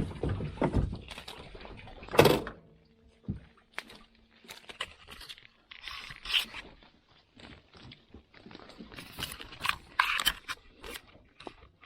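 Irregular scrapes, knocks and rustles of branches and fishing gear as a hooked mangrove jack is worked out of a deep snag in the mangroves. The loudest knock comes about two seconds in.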